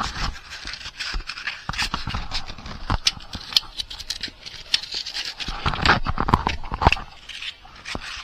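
Soldering iron tip rubbed on sandpaper to clean it, a run of irregular scraping strokes with small clicks and knocks.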